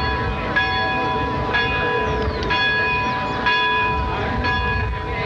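Church bells ringing in the tower, struck about once a second, each strike ringing on over the last, with a low rumble underneath.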